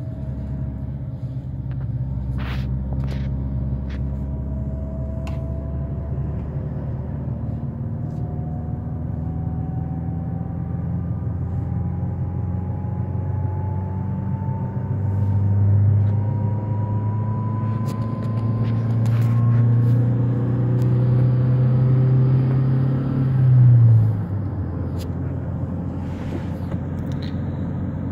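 Engine and road noise inside a Toyota car's cabin at highway speed: a steady low rumble with a faint whine that rises slowly in pitch. A deeper engine note swells in the second half and drops off suddenly about twenty-four seconds in.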